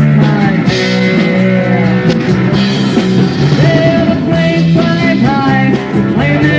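Rock band playing loudly: electric guitar, bass guitar and drums, with sliding guitar notes.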